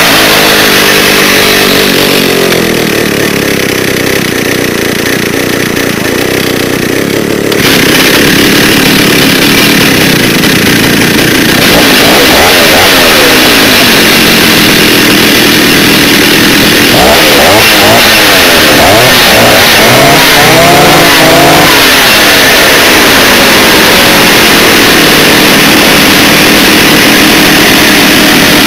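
Old Stihl 08-series two-stroke chainsaw running, its engine revved up and down repeatedly. The engine runs a little quieter for a few seconds before picking up again, and the revs climb and fall several times in the second half.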